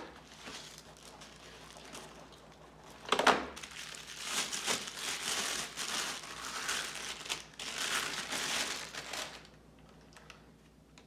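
Plastic bag crinkling and rustling as a pair of binoculars is unwrapped from it, with a sudden loud rustle about three seconds in; the crinkling stops about a second and a half before the end.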